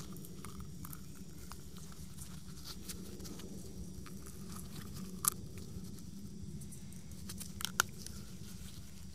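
Small clicks, rubbing and crinkling as gloved hands work an old rubber dust boot out of a brake caliper's piston bore, with two sharper clicks about five and eight seconds in, over a steady low background hum.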